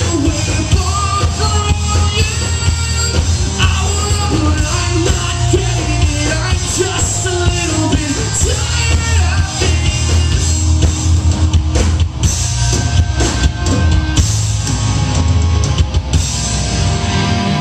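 Live rock band playing a song: a lead singer over electric guitars, bass and a drum kit, heard from the audience in a club.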